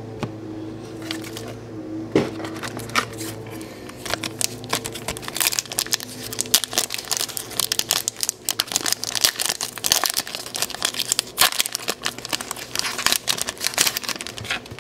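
Foil Pokémon booster pack torn open and its wrapper crinkled: a dense run of sharp crackles from about four seconds in, over faint background music at the start.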